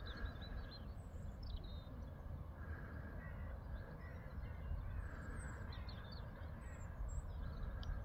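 Outdoor ambience: a steady low rumble of wind on the microphone, with short, scattered high bird calls throughout.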